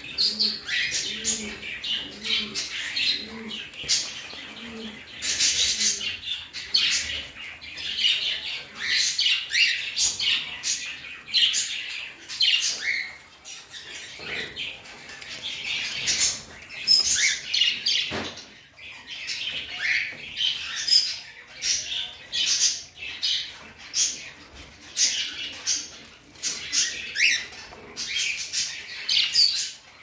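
A flock of caged budgerigars chattering, with many short, high chirps and warbles overlapping without a break.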